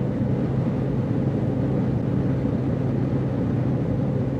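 Steady car cabin noise: a low hum with road rumble.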